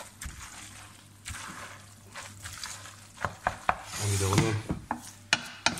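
Bavette pasta being stirred and tossed in a stainless steel pot with a metal utensil, working in the carbonara egg mixture. Several sharp clinks of metal on the pot come in the second half.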